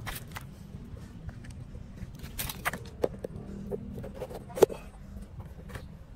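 Outdoor ambience: a steady low rumble with a few scattered sharp clicks and knocks, the sharpest about four and a half seconds in.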